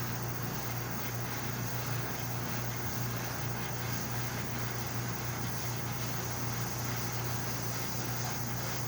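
Paseco PWA-2100W window air conditioner running: a steady low hum over even fan and airflow noise.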